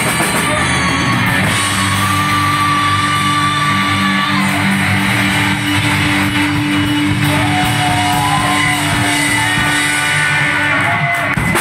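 Live rock band of electric guitar, electric bass and drum kit holding a long chord that rings on, with a wavering guitar line over it, cutting off near the end as the song finishes.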